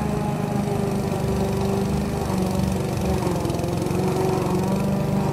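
Duricut 820 lawn mower's 159cc engine running steadily as it cuts grass, a continuous drone with a slight waver in pitch.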